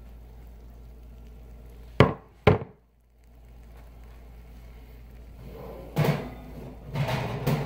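Two sharp knocks about half a second apart, then a run of clunks and rustling in the last couple of seconds from hard objects being handled.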